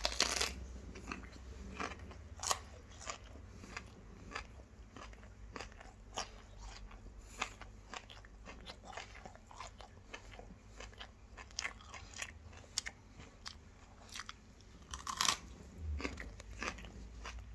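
Raw broccoli being bitten and chewed close to the microphone: a run of crisp crunches at uneven intervals, with a few louder bites.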